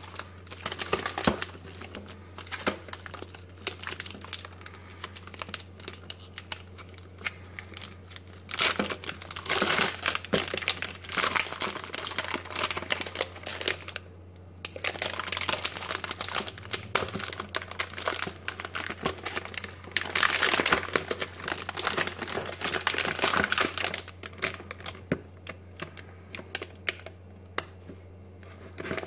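A large chocolate bar being unwrapped by hand: the paper sleeve and inner foil crinkle and tear in long bursts, with quieter rustling near the end.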